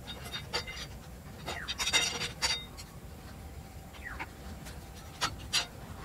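Metal tools scraping and clicking against a steel motorcycle brake disc and a budget disc lock as the lock is pried at. A longer scrape comes about two seconds in, and a couple of sharp knocks come near the end.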